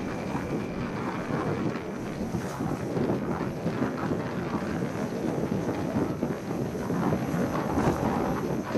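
Wind buffeting the microphone on a passenger ferry under way, over the steady rumble of the boat and water; an uneven, gusting rumble with no distinct events.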